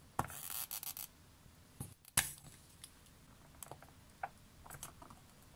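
Spring-loaded desoldering pump (solder sucker) firing with one sharp snap about two seconds in, sucking molten solder off a circuit-board joint under the soldering iron. Light clicks and scraping of the tools on the board around it.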